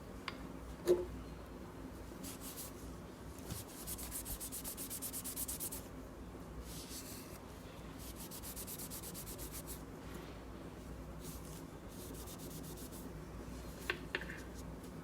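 Rubbing on the white plastic of an Apple power adapter to clean off dirt: spells of quick back-and-forth strokes. There is a small knock about a second in and a couple of light clicks near the end.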